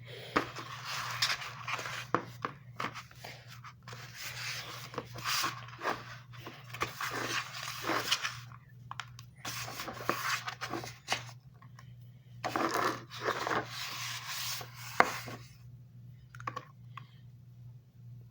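Kinetic sand being scraped and rubbed by hand, in irregular scraping bursts with sharp clicks and taps, over a steady low hum.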